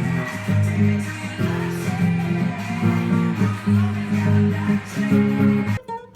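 Music with a strummed acoustic guitar, the chords changing every half second or so. Near the end it cuts off suddenly, leaving a few quieter single plucked guitar notes.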